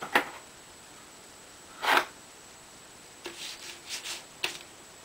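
A child's paintbrush scrubbing on paper on a wooden easel and knocking in the paint tray, in short scratchy strokes: one near the start, a louder one about two seconds in, and a quick run of strokes near the end.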